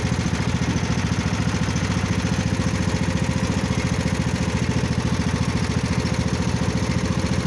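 Engine running steadily at an even speed, with a regular fast pulse and no revving.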